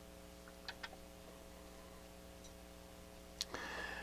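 Faint clicks and handling noise from fingers working a small rotary control assembly on its circuit board, with a sharper click and a short scraping rustle near the end.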